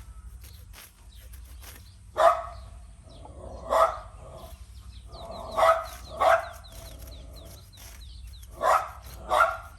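A dog barking: six single barks at uneven intervals, roughly one to two seconds apart.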